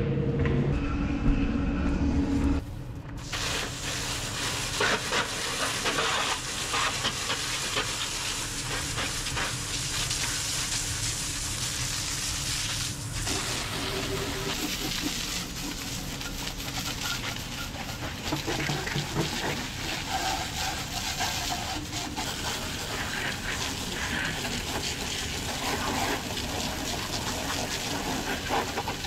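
Water spraying from a hose into the belly of a Kubota skid loader, a steady hiss with spattering as it washes out built-up dirt and dust. A louder steady hum runs for the first two and a half seconds before the spraying takes over.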